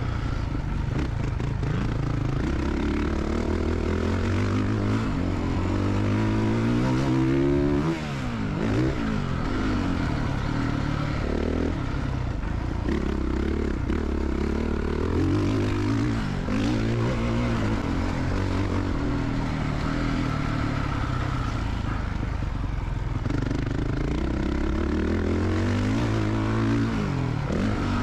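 Honda CRF450R's 450 cc single-cylinder four-stroke engine revving up and down again and again as the motocross bike is ridden. The throttle is briefly shut off about eight seconds in.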